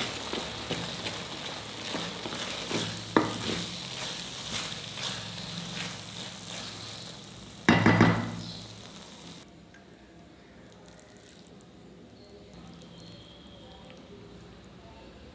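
Sweet vermicelli sizzling in a stainless steel pan while a metal spatula stirs it, scraping and clicking against the pan, with louder clatters about three and eight seconds in. The sizzling stops about nine seconds in.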